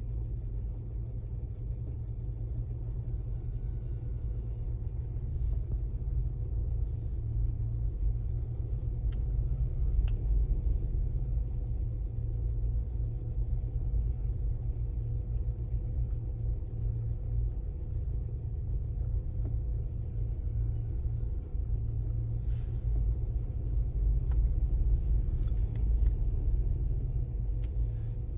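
Steady low rumble with a faint constant hum above it, swelling a little twice, and a few faint ticks in the last few seconds.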